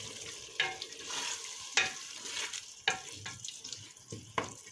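Wooden spatula stirring and scraping through a sizzling tomato-paste mixture in a steel pot, with a scrape about once a second over a steady frying hiss.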